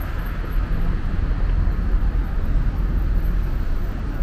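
Street traffic on a city avenue: a steady noise of passing cars and their engines, with no single event standing out.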